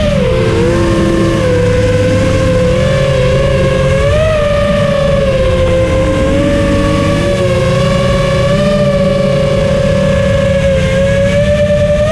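Four T-Motor F40 Pro II brushless motors spinning 6-inch tri-blade props on an FPV racing quadcopter in flight: a steady high-pitched whine whose pitch follows the throttle, swelling briefly about four seconds in, over a low rumble.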